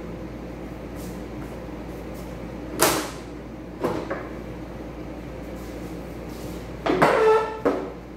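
A few dull knocks as a car's front fender is worked loose and lifted off, then a louder clatter with a short ringing tone about seven seconds in as the fender is set down on the concrete floor.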